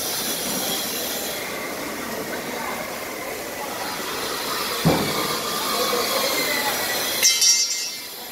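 Shop-floor noise of a railway coach assembly shop: a steady clatter and hum of work, with one sharp metal clank about five seconds in and a short high-pitched burst near the end.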